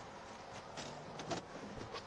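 Steady vehicle noise with a faint hum, broken by a few light clicks and knocks around the middle.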